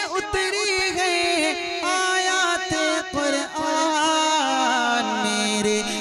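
A naat, an Urdu devotional song, sung in a melismatic vocal line over a steady low held tone. The low tone drops in pitch about five seconds in.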